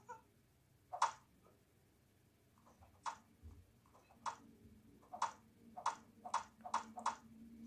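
Cartoon sound effects of knives thudding into a wooden target board: eight sharp strikes, spaced out at first and coming faster toward the end.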